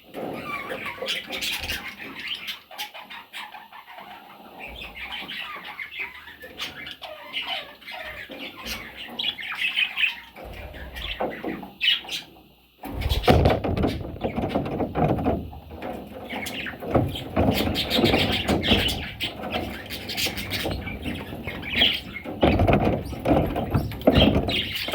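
Several budgerigars chirping and chattering. The sound grows denser and louder from about halfway, with the flutter of wings.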